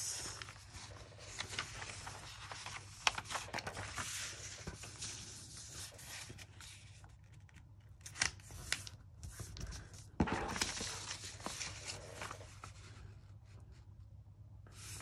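Sheets of patterned craft paper rustling and sliding over a cutting mat as they are shuffled, folded and pressed flat, in bouts with quieter pauses between.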